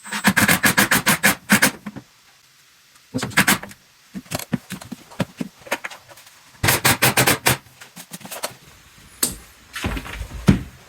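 Hinge screws being driven in several short bursts of rapid clicking, about eight clicks a second, with single knocks in between.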